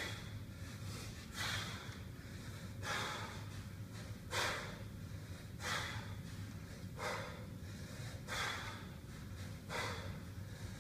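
A man's sharp, forceful breaths, one with each rep of one-arm kettlebell cleans, in a steady rhythm about every one and a half seconds, some eight in all.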